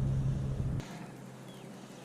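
Low rumble of wind buffeting the microphone that cuts off suddenly under a second in, leaving quiet outdoor background with a few faint chirps.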